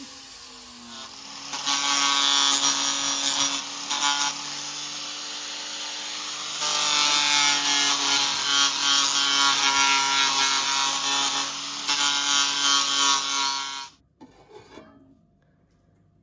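A small motor-driven machine running with a harsh, rasping grind and a steady hum, loudest in its second half, then cutting off suddenly near the end.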